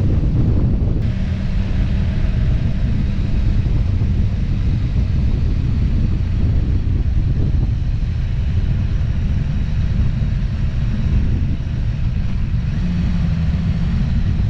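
Steady low rumble of a vehicle on the move, with wind buffeting the microphone over the engine noise.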